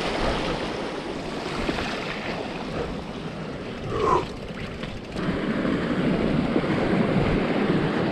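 Steady rushing, splashing water as a mountain bike rides through a creek crossing, with a brief squeal about four seconds in.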